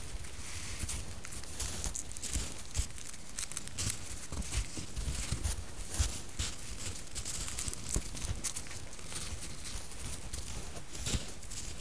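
White-tailed deer hooves crunching in crusted snow: irregular crunches and clicks over a steady hiss.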